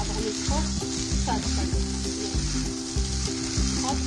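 Sauce-coated chickpeas and vegetables sizzling in a pan over a high gas flame, stirred and tossed with a wooden spatula. Background music with low notes plays underneath.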